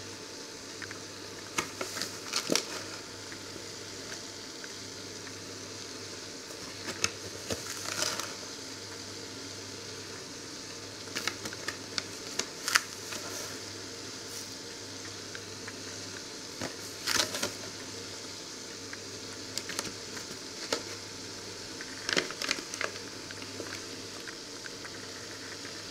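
Liquid bubbling in a stainless saucepan on an electric hob, with a steady hiss. Over it come short crackling and rustling noises every few seconds as sugar is poured in from a paper bag.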